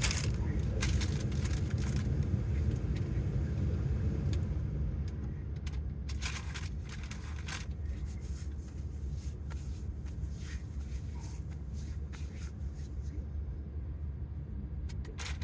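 Steady low rumble with scattered short clicks and rustles, as food containers are handled.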